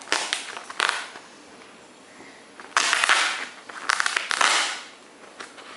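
The sealed wrapping of a tarot deck being torn and crinkled open, in crackling bursts. There are short ones in the first second, then two longer, louder stretches about three and four seconds in.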